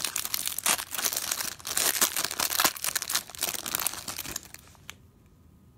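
Clear plastic wrapper of an Absolute football card pack crinkling and tearing as it is pulled open by hand. The crinkling stops about three-quarters of the way through, leaving only a few faint clicks.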